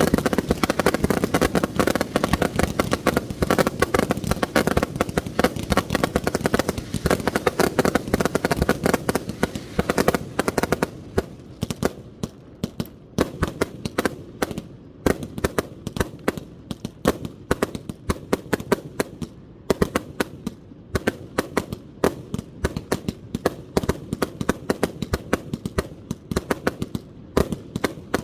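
1.3G display fireworks firing from multi-shot basins: a dense, nearly unbroken barrage of rapid reports for about the first ten seconds, then thinning to a fast string of separate sharp bangs.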